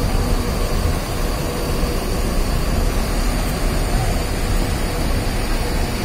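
Mercedes-Benz OH 1526 coach's diesel engine idling steadily as a low, even rumble.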